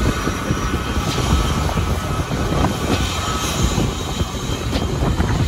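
Airplane engines running: a loud, steady, rough rumble with a faint high whine above it.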